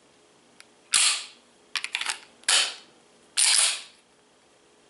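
Semi-automatic pistol's slide being racked by hand: four loud, sharp metallic clacks about a second apart, with a quick run of smaller clicks between the first two.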